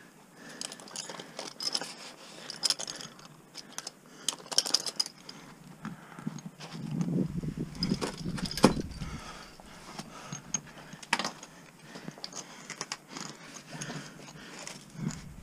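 Metal climbing hardware clinking and jangling, carabiners and a quickdraw, as the rope is handled and clipped, with several sharp metallic clicks spread through.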